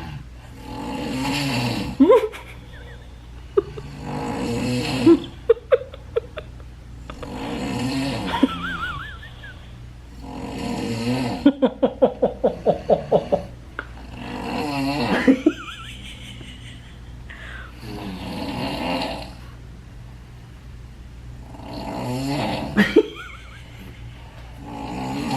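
People asleep and snoring, with a long snore every three to four seconds. About halfway through, one snore breaks into a rapid fluttering rattle.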